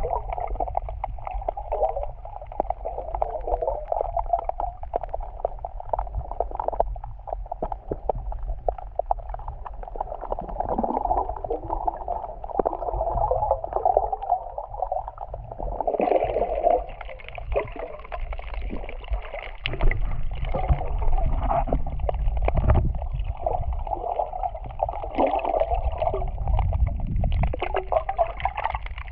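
Muffled underwater water noise picked up by a camera in its waterproof housing: water sloshing and gurgling with a low rumble, growing a little louder about two-thirds of the way through.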